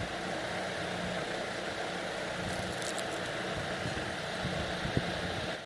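Activa Gracia 1200 mm BLDC ceiling fan running: a steady rush of air with a low hum, a single click about five seconds in, then the sound cuts off suddenly.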